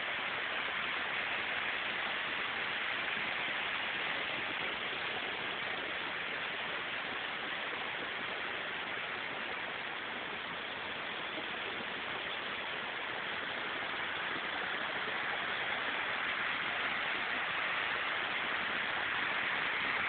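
Waterfall and stream water rushing: a steady, even noise that eases slightly midway and grows a little louder near the end.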